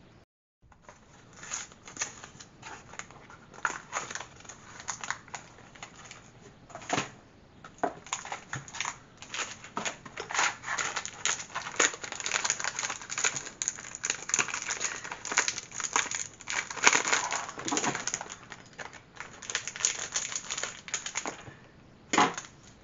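Crinkling and crackling of a Pocky box's plastic wrapper being handled and opened, in many quick irregular bursts that go on for about twenty seconds, with a short lull and one last crinkle near the end.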